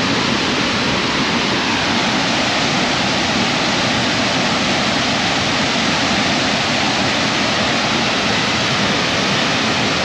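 Waterfall and fast-flowing river water, a steady, loud rush.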